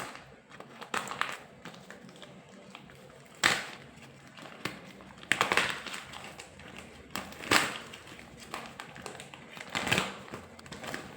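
A parcel's packaging being opened by hand: rustling and crinkling, with four louder noisy bursts spaced roughly two seconds apart.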